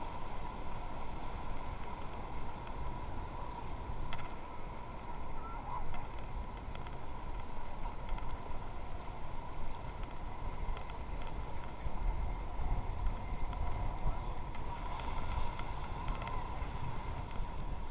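Steady rush of river water with wind buffeting the microphone aboard an inflatable raft. A faint steady whine runs under it throughout.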